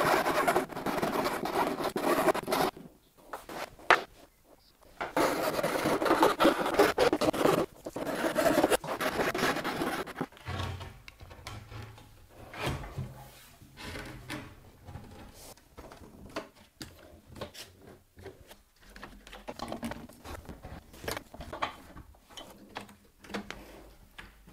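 Melamine-faced chipboard panels rubbing and scraping as they are handled and fitted, in two long stretches in the first ten seconds. After that come quieter scattered knocks and clicks of panels and clamps against the steel table frame.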